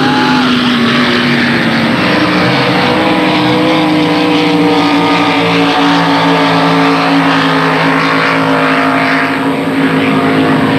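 Racing powerboat engines running at full speed, a loud, steady drone whose pitch shifts only slowly.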